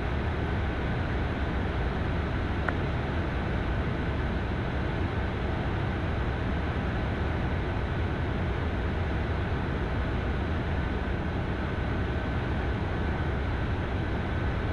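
Steady flight-deck noise of an Embraer Phenom 300 twin-turbofan jet climbing at climb power: a constant rush of airflow and engine noise, strongest at the low end, with a thin steady whine above it.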